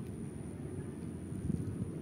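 Wind buffeting the microphone: an uneven low rumble, with a faint, steady high-pitched whine above it.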